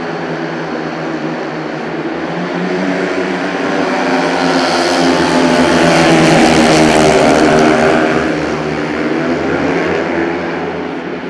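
Four speedway motorcycles racing flat out from the start, their 500 cc single-cylinder methanol engines at full throttle. The engines grow louder to a peak about five to eight seconds in, then fade as the bikes move away around the bend.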